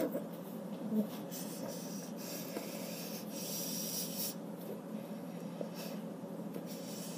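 A person breathing noisily through the nose around a mouthful of whipped cream: three hissy breaths in the first half, over a low steady hum.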